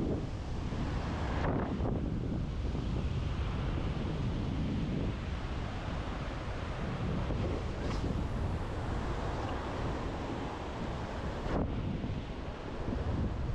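Strong wind buffeting the microphone in gusts, over the wash of breaking surf.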